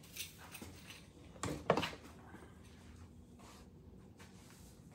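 A few soft knocks and rustles from the camera being handled and moved, the loudest pair about a second and a half in, then quiet room tone with a faint steady hum.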